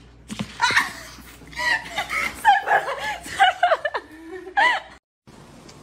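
A person laughing in several short fits of laughter.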